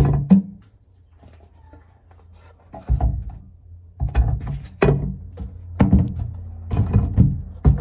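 Plastic and glass spice jars being set down and moved about on a turntable tray in a kitchen cupboard: a series of knocks and clunks, one sharp one at the start, then about one a second from three seconds in.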